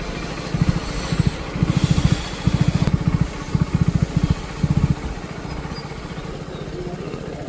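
Motorcycle engine running as the bike is ridden, its note surging several times with the throttle, then settling steadier and a little quieter about five seconds in.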